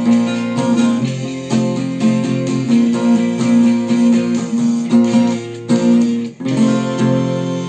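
Acoustic guitar with a capo strummed in steady chords, with a brief break about six seconds in before the strumming resumes.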